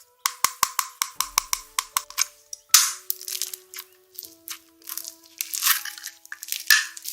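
Quick, crisp crunching and crackling clicks, many a second, over quiet background music of held notes.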